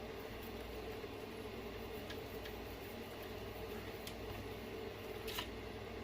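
Scattered light clicks and taps of hand work on a plastic RC-truck differential cover and its screws, the clearest near the end, over a steady low background hum.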